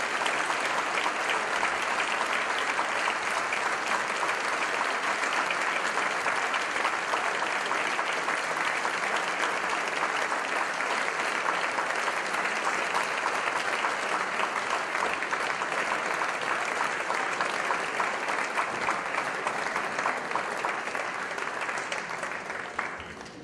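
Theatre audience applauding steadily after a performance, the clapping fading away near the end.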